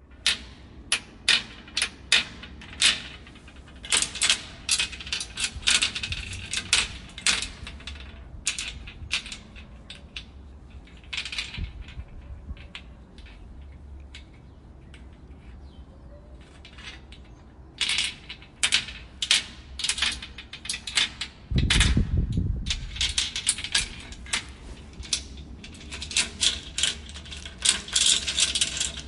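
Padlocks and chains handled and shaken: many sharp metal clanks, clicks and chain rattles in quick runs, thinning out for a stretch in the middle. About three quarters of the way through there is one heavy low thud.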